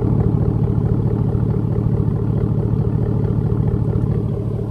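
Chevrolet Silverado's 4.8-liter Vortec V8 idling steadily through an exhaust whose muffler has been cut off and replaced by a straight length of chain-link fence post pipe, with an even, deep low pulse.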